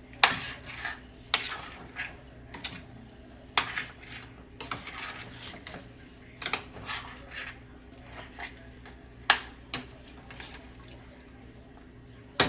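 A utensil stirring a pot of curry chicken wings, knocking and scraping against the pot's sides about ten times at irregular intervals, over a faint steady hum.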